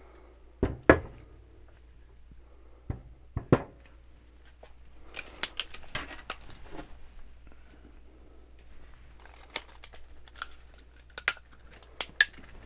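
Scattered sharp clicks and knocks with light rustling, from a measure and hand tools being handled against a freshly fitted water pump stud on a Chevy 350 small-block while its height is checked. The loudest knocks come about a second in, with a run of lighter clicks through the middle and a few more near the end.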